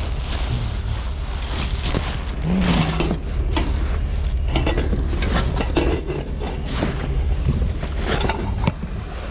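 Clatter, knocks and scraping of discarded items being handled and pulled through a junk pile, many short impacts, over a steady low rumble.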